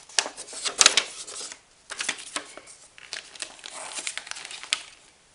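A paper instruction sheet and plastic parts bags crinkling and rustling as hands handle them. The crackles come irregularly and are loudest about a second in.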